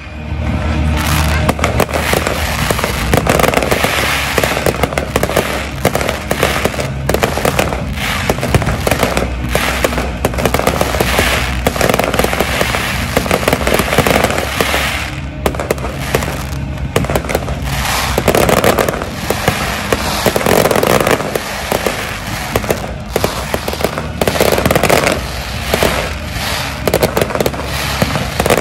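Aerial fireworks display: a dense, continuous barrage of shell bursts and crackling stars.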